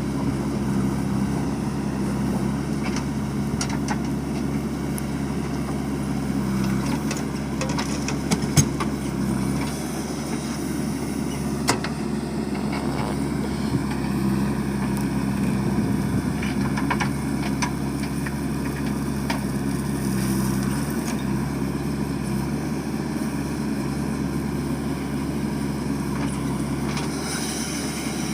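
JCB 3DX backhoe loader's diesel engine running steadily while working, its level swelling a little now and then, with a few short sharp knocks.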